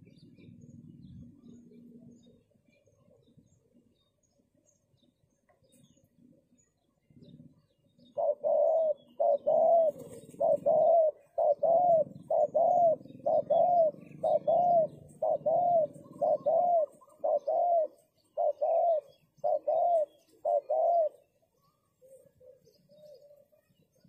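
Spotted dove cooing: a long run of about twenty short, rising-and-falling coo notes at an even pace, starting about a third of the way in and stopping a few seconds before the end.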